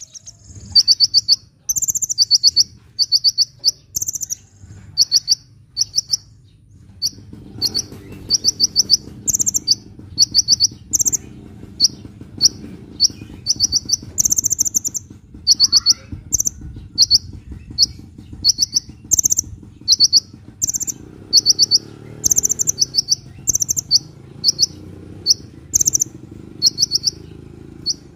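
A sunbird singing: short bursts of very rapid, high-pitched trilled chips, repeated over and over in quick succession. A low steady background rumble sits underneath from about a quarter of the way in.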